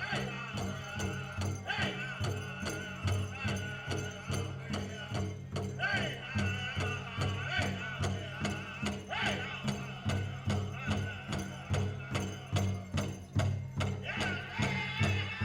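Powwow drum group singing in high voices over a steady, fast beat on the big drum, with jingling bells.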